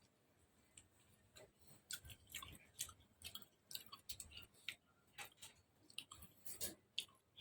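Faint eating sounds from a bowl of beef noodle soup: chewing, with many short, irregular clicks.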